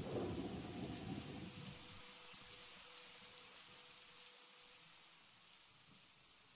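Rain and thunder: a low thunder rumble dies away about two seconds in, leaving a steady hiss of falling rain that fades out gradually.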